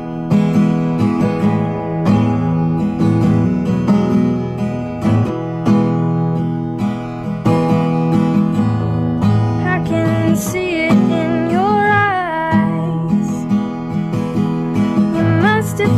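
Live acoustic song: a steadily strummed acoustic string instrument plays the intro. A woman's singing voice comes in about ten seconds in and again near the end.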